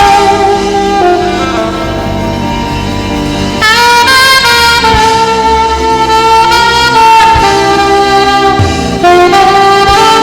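Saxophone playing a slow gospel melody in long held notes over instrumental accompaniment, a new phrase starting about three and a half seconds in and one long note sustained through the second half.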